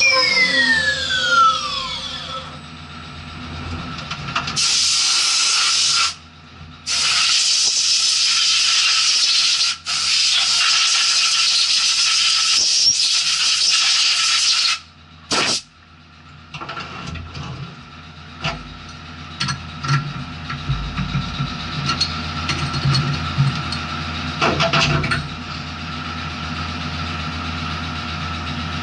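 CNC milling machine spindle winding down with a falling whine, then two long hissing bursts, then scattered clicks over the machine's steady hum.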